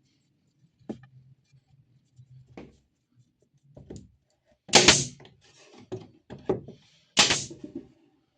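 A series of separate knocks and clunks, about seven in all, the two loudest near the middle and near the end each drawn out by a short scraping hiss.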